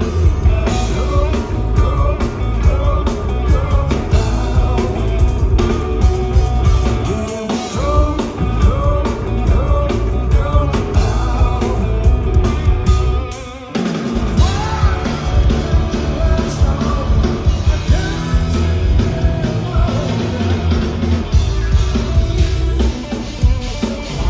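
Rock power trio playing live: electric guitar, electric bass and drum kit, with a sung vocal line. The music dips briefly about halfway through, then comes straight back in.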